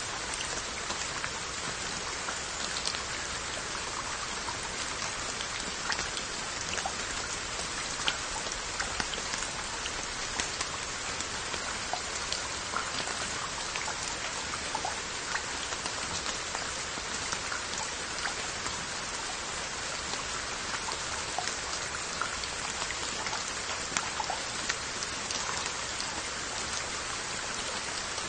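Steady rain falling on glazed Korean earthenware onggi jars: an even hiss with many single drops ticking sharply on the jars.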